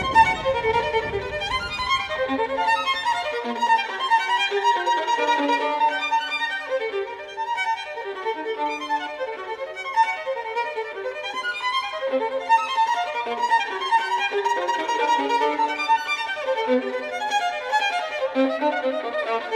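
Violin music: a melody of many short notes moving up and down, with a low rumble that fades out in the first three seconds.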